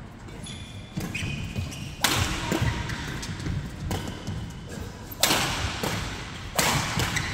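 Badminton rally: several sharp cracks of rackets striking the shuttlecock, each ringing on in the big hall, with low thuds of footwork on the court between them.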